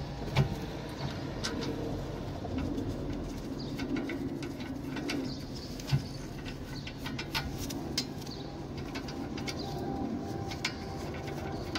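A pigeon cooing in the background, over scattered sharp clicks and taps from hand work on a car's brake caliper and its bolts.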